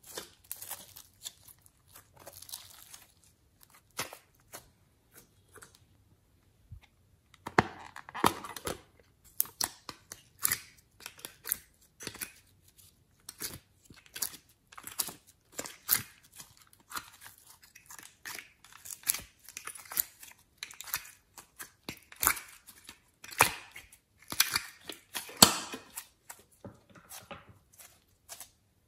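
Hands squeezing, stretching and kneading soft clay-textured slime, making irregular crackles and pops, often several a second. There are denser, louder bursts about eight seconds in and again around twenty-five seconds.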